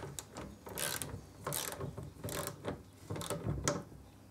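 Ratchet head of a digital torque wrench clicking in short bursts, about one a second, as a sprocket carrier nut is wound down toward its 50 N·m torque; the clicking stops about four seconds in.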